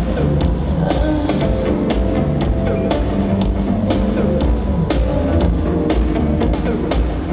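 Live pop music over an arena sound system, with a heavy drum beat at about two hits a second and strong bass.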